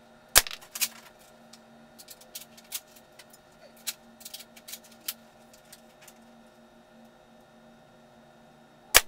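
Two sharp shots from a D Boys KAR98 spring-powered airsoft bolt-action rifle, one shortly after the start and one near the end, each followed about half a second later by a smaller snap. Between them come light metallic clicks and clinks as the bolt is worked and a shell is ejected.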